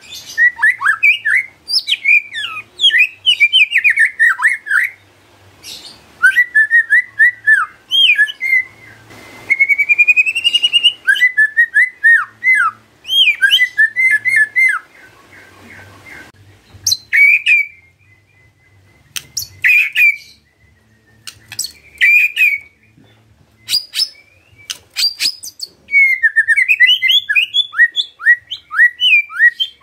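White-rumped shama (murai batu) singing in full voice: bursts of quick sweeping whistled notes mixed with sharp clicks, broken by short pauses, with a long rising whistle about ten seconds in.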